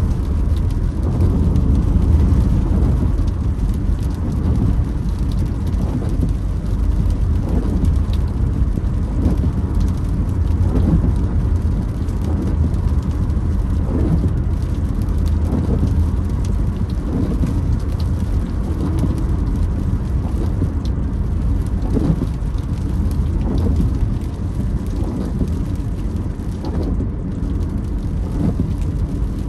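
Rain on a moving car's windshield and body over the low, steady rumble of driving on a wet road, heard from inside the car. The windshield wipers sweep back and forth with a creak on each pass, about once every second or so.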